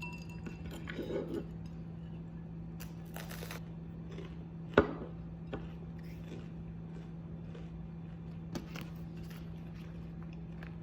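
Quiet room with a steady low hum, with a few small clicks and light rustles and one sharper knock about five seconds in.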